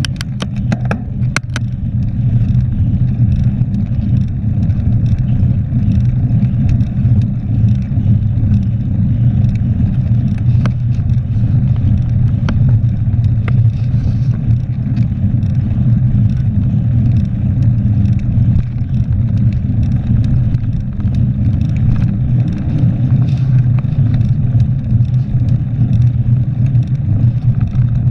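Steady low rumble of wind and road vibration on a GoPro camera mounted on a mountain bike rolling along an asphalt road, with a few sharp clicks about a second in.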